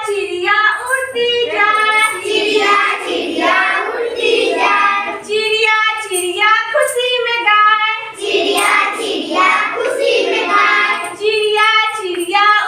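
Children singing a Hindi counting rhyme about little birds flying away, in sung phrases with no break.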